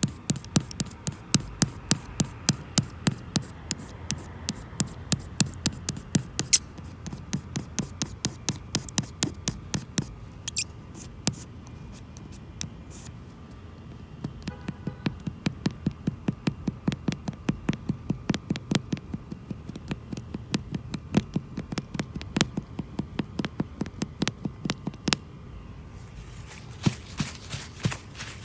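Razor blade scraping cured repair resin off windshield glass in quick short strokes, about three or four a second, pausing twice.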